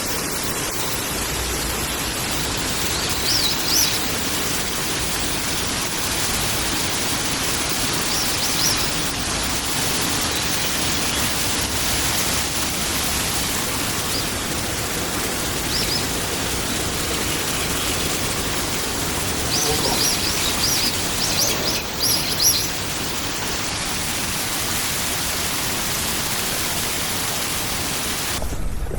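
A forest stream rushing steadily, with short high bird chirps heard a few times over it.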